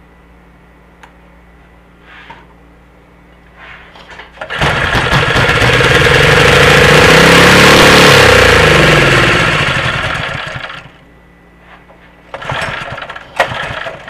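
Honda GX120 single-cylinder OHV engine pull-started: it catches about four and a half seconds in, runs loudly for about six seconds, then slows and dies away. It will not stay running because fuel is not getting from the carburetor bowl into the engine, which the owner puts down to a gummed-up carburetor. A shorter burst of another start attempt follows near the end.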